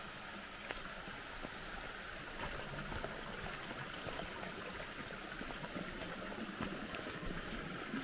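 Forest stream running over rocks: a steady, even rushing hiss, with a few faint ticks.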